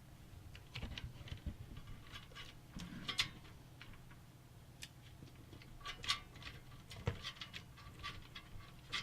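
Light, irregular clicks and scrapes of computer parts and a small tool being worked by hand, with a faint steady low hum underneath.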